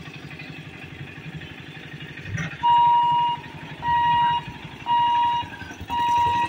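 A level-crossing warning hooter beeping, one steady electronic tone switching on and off about once a second, four beeps starting about two and a half seconds in, as the boom barrier moves. Underneath, a low rumble of idling motorcycle engines waiting at the gate.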